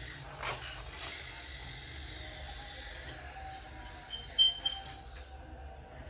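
Small metal clicks from hand tools and a fitting on a refrigerator compressor's copper tubing, with one sharp metallic clink that rings briefly about four and a half seconds in, over a faint steady hiss.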